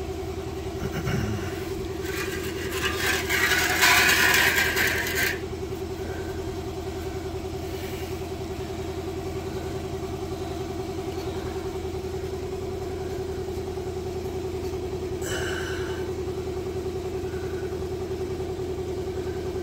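Electric air compressor running with a steady hum. A few seconds in, a loud rushing noise lasts about three seconds, and a shorter one comes later on.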